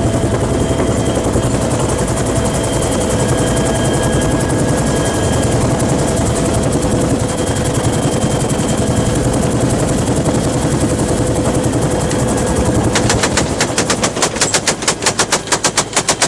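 Helicopter engine and rotor noise running steadily. About three-quarters of the way in, the door-mounted belt-fed machine gun opens up in a long string of rapid, evenly spaced shots that carries on to the end.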